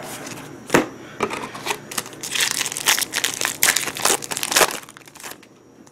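Foil wrapper of a Yu-Gi-Oh Magic Ruler booster pack crinkling and tearing as it is pulled open by hand: a dense run of crackles lasting about three seconds from two seconds in. There is a single sharp tap under a second in.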